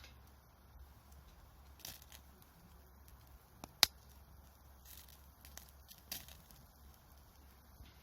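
Wood fire crackling: a few scattered sharp pops, the loudest one about four seconds in.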